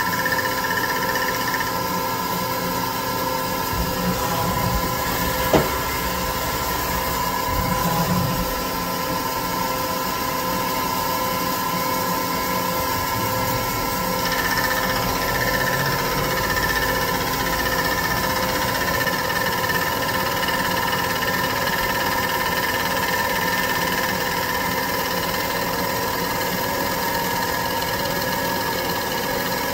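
CNC milling machine spinning an 11-inch fly cutter bar and cutting cast aluminum plate: a steady machine sound with several held tones over a hiss. A single sharp tick about five and a half seconds in.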